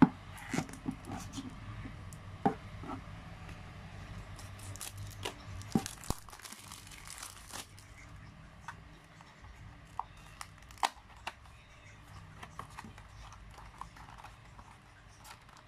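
Packaging box of cardboard and shiny plastic being handled and opened: crinkling and rustling with scattered sharp clicks and taps, and a longer stretch of crinkling about five seconds in.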